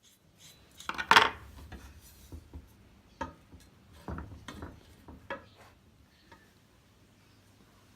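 Metal parts clanking and clinking together as they are handled: one loud clank about a second in, then several lighter knocks until about five and a half seconds in.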